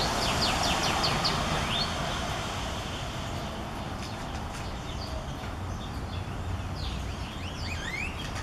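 Female northern cardinal singing: a quick run of about six loud down-slurred whistled notes, then a rising note, followed by softer slurred phrases in the second half.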